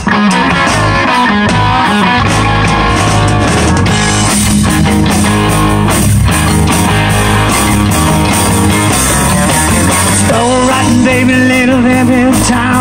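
Live rock band starting a song loud and abruptly: electric guitar and drums playing an instrumental intro before the vocals come in.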